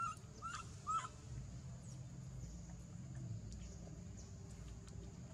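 Baby macaque giving three short cries in quick succession in the first second.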